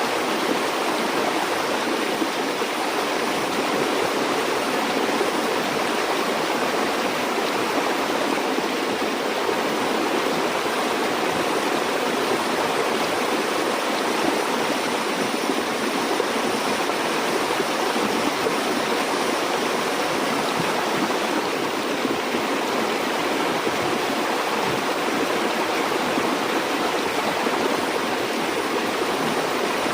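Stream water flowing and splashing steadily over rocks, an even rushing noise with no pauses or distinct splashes.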